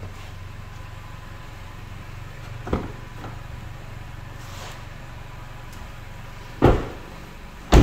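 2015 Chevrolet Cruze's four-cylinder engine idling with a steady low hum. There is a light knock about three seconds in, then two car doors are shut with heavy thumps near the end, about a second apart.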